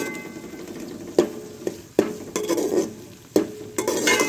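Metal slotted spoon stirring and scraping onions, garlic, ginger and green chillies frying in ghee in an aluminium pot, with sizzling throughout and a few sharp clinks of the spoon against the pot.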